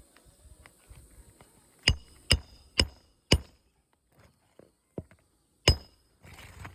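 Hammer driving a roofing nail into an asphalt shingle: four quick strikes about half a second apart, then a single strike a couple of seconds later, each with a short metallic ring.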